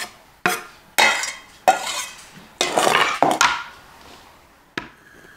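Chef's knife knocking and scraping against a bamboo cutting board and a stainless steel bowl as diced pepper is pushed in: about six sharp knocks and clinks, some ringing briefly.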